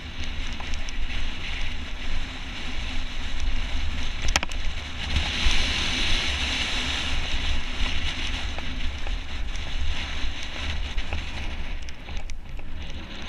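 Wind buffeting the action camera's microphone and mountain bike tyres rolling fast over loose gravel, a continuous rushing rumble with hiss that swells for a few seconds midway. A single sharp knock a little over four seconds in.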